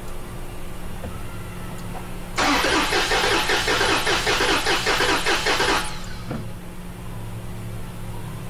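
Toyota 2GR-FKS V6 turned over on its starter for a compression test, without firing: an even rhythm of compression pulses, several a second. It starts about two and a half seconds in and cuts off after about three and a half seconds.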